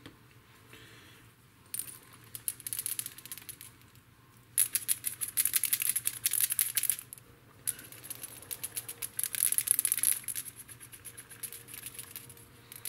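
Bottle of airbrush paint being shaken, its mixing ball rattling in rapid clicks. This comes in three spells of two to three seconds each, starting about two seconds in.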